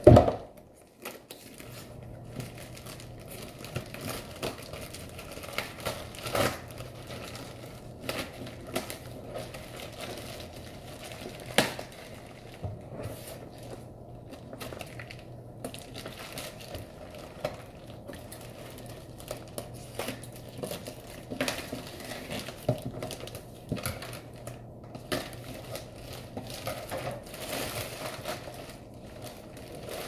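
Plastic mailer bag being torn open and crinkled by hand, an irregular run of crackles and rustles with sharp snaps here and there. A single thud at the very start as the parcel lands on the desk.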